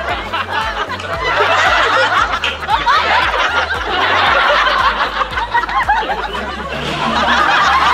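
A group of people laughing and chuckling together, many voices overlapping, over background music with a stepping bass line.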